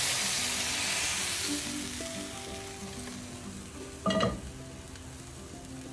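Mushrooms sizzling in butter and olive oil in a pan on high heat, the sizzle dying down over the first couple of seconds. A brief loud clatter about four seconds in, with soft background music underneath.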